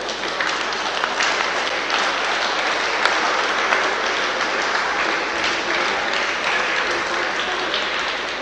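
Crowd applauding: a dense, steady patter of many hands clapping that eases slightly near the end.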